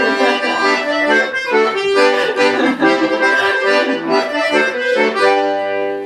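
Accordion playing an instrumental break in a chastushka accompaniment, chords and melody notes changing, then a held chord about five seconds in that fades away.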